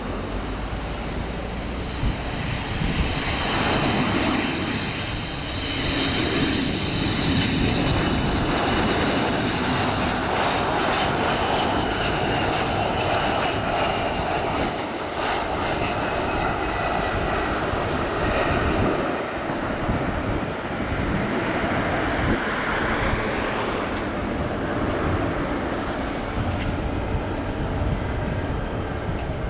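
Jet engines of a Boeing RC-135S on its landing pass: a steady loud roar with a high whine that slowly falls in pitch.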